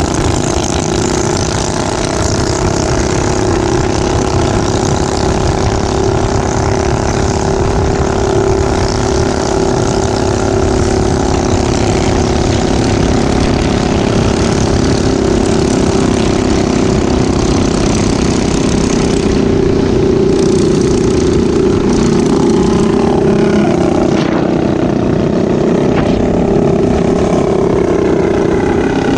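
Small minibike engine running steadily at cruising speed, close up from the bike the recording rides on, with wind rushing over the microphone.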